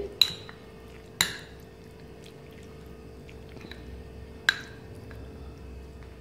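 Metal spoon mixing chicken pieces into a thick yogurt and spice marinade in a glass bowl, with three sharp clinks of the spoon against the glass: near the start, about a second in, and about four and a half seconds in.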